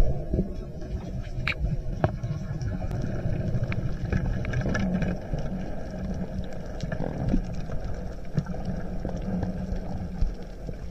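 Underwater noise through an action camera's housing: a steady low hum with scattered sharp clicks and knocks as a speared fish struggles on the spear shaft and line just after a speargun shot.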